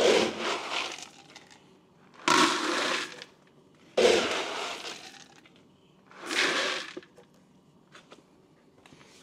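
A red plastic scoop digging into a bucket of dry kibble, the hard pellets rattling and spilling in four bursts of about a second each.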